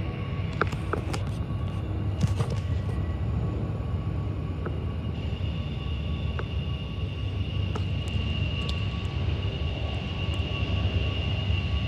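Double-stack container freight train rolling past, a steady low rumble of the cars on the rails with scattered clicks. A thin, high steady squeal, typical of wheel flanges on curving track, grows stronger about halfway through.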